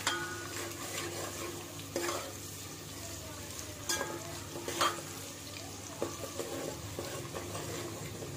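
Onions and ginger-garlic paste sizzling in hot oil in a steel pot while a steel ladle stirs them, scraping and knocking against the pot about five times.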